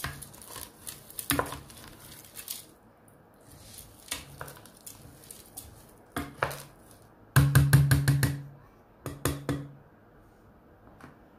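Wooden spoon stirring raw lentils and chopped vegetables in a metal pot, scraping and knocking against the pot. A little after halfway comes the loudest part, a quick run of knocks with a low ring from the pot, then a few more knocks before it goes quiet.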